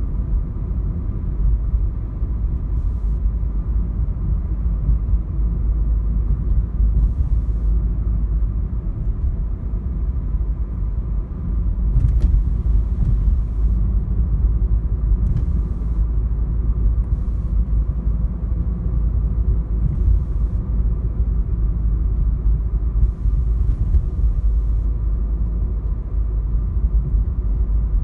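Steady low rumble of road and engine noise inside the cabin of a Renault Clio 4 with the 1.5-litre dCi 90 diesel, driving at a steady speed.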